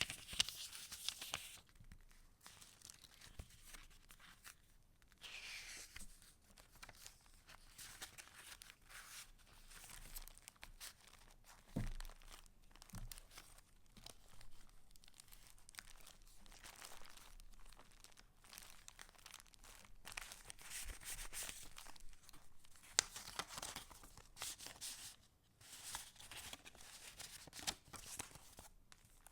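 Paper pages of a handmade junk journal rustling and crinkling as they are turned and handled, in a series of soft swishes. Two light knocks come near the middle.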